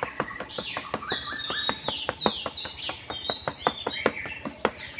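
Several birds chirping in quick, overlapping calls, many of them short notes sliding down in pitch, with sharp clicks among them.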